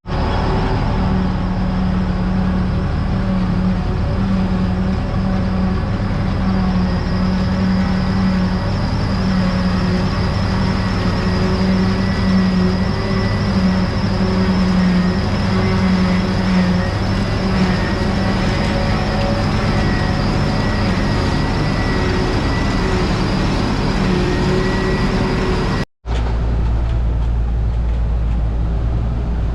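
Farm tractor engine running steadily, with a faint steady whine over the hum. About 26 seconds in the sound cuts out for an instant and returns as a deeper, steadier hum.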